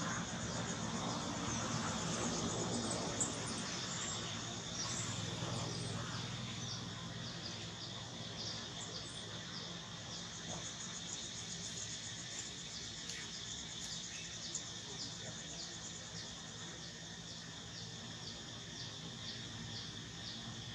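Insects calling: a steady high buzz with a regular string of short, high chirps.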